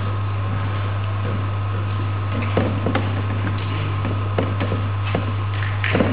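Steady low electrical hum with background hiss, and a few faint short clicks and knocks scattered through.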